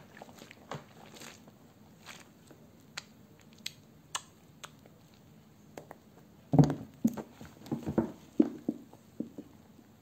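Soaked bars of Natural Source black currant soap rubbed together in wet, lathered hands: wet squishing and squelching with small clicks of foam. The sounds are sparse at first, with a louder, denser run of squelches from about six and a half to eight and a half seconds in.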